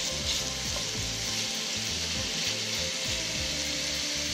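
Cubed sirloin steak sizzling steadily in butter in a hot cast-iron Dutch oven as it browns, stirred with a wooden spatula.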